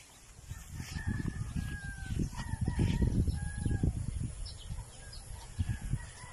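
Rooster crowing, drawn-out calls about a second in and again near the end, over a low, uneven rumble on the microphone that is loudest in the middle.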